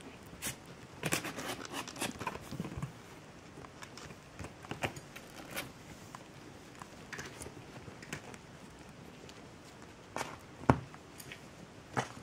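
Maine Coon kittens play-fighting on a blanket in a cardboard box: scuffling and rustling of paws and claws on fabric, with scattered soft knocks. The busiest stretch comes in the first couple of seconds, and one sharp tap comes near the end.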